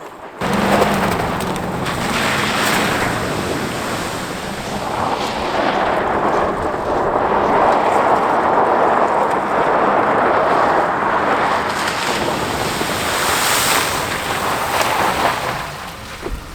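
Steady rushing noise like wind buffeting the microphone or surf, cutting in abruptly just under half a second in and running on without a break.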